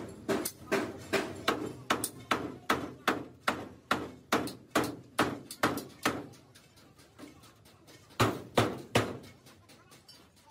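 Hammer blows on the truck's steel bodywork, struck in a steady rhythm of about two to three a second; after a short pause, four harder blows come in quick succession.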